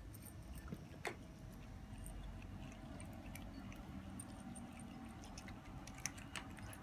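Quiet room tone with a few faint ticks and clicks, the sharpest about a second in.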